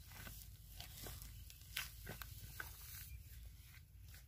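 Faint, scattered crunches and clicks of dry, cracked mud clods being disturbed by digging and stepping, over a low steady rumble.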